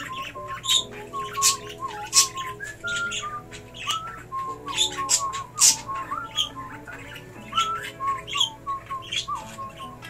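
Pet budgerigars chirping and squawking in short, sharp calls, a few every second, over background music with held notes.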